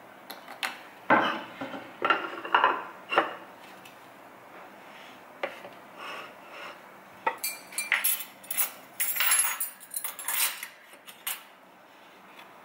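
Tableware being set down on a wooden tray: a few dull knocks in the first three seconds, then metal cutlery clinking in a quick run of bright clinks in the second half as the fork, knife and spoon are laid down.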